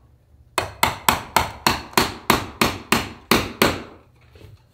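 Hammer tapping on saddle-making tools at a leather saddle seat: about eleven quick, even blows over some three seconds, each with a short ringing tail.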